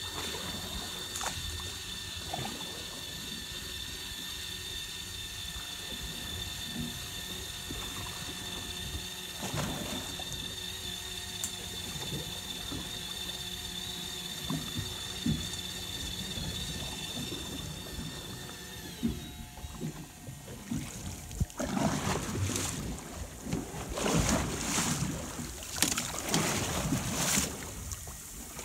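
Electric fishing reel winding in a hooked chicken grunt with a steady high whine that stops about two-thirds of the way through. Then the fish splashes at the surface in a run of loud bursts as it is drawn up to the boat.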